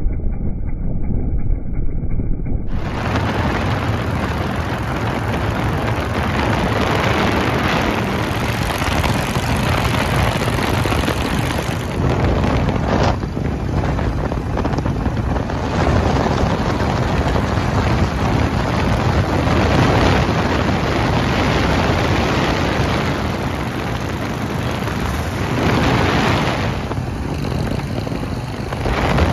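Wind rushing over the microphone of a motorcycle riding at highway speed, mixed with motorcycle engine and road noise. The sound changes abruptly about three seconds in and shifts again a few times.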